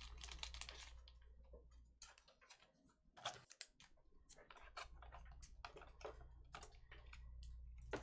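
Faint, scattered clicks and taps, irregular and a fraction of a second apart, over a low steady hum.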